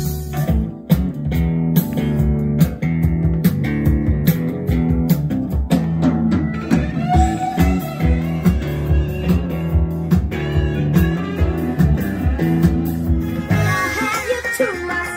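Guitar-led rock music playing through a 1970 Pioneer SX-440 stereo receiver and its speakers, clean with no static or pops: the receiver's transistor replacement appears to have cured the noise. The music changes near the end.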